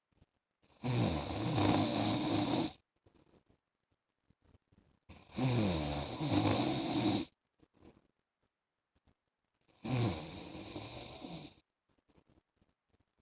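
A man snoring in his sleep: three snores of about two seconds each, coming roughly every four and a half seconds, with quiet breathing gaps between them.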